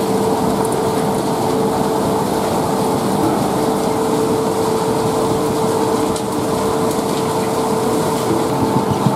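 Wood-sawdust briquetting plant machinery running: electric motors and a belt conveyor carrying sawdust make a steady mechanical din with a constant hum that eases slightly about six seconds in.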